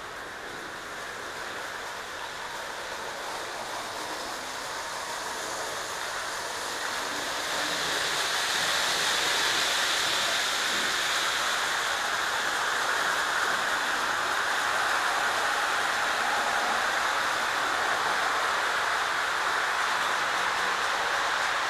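O gauge model train rolling on three-rail track: a steady rolling noise that grows louder over the first several seconds as the train draws nearer, then holds.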